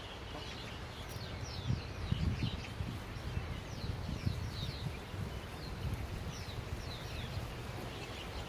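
Small birds chirping, many short high calls that each slide downward, repeated throughout. Beneath them a low rumble of wind on the microphone, strongest about two to four seconds in.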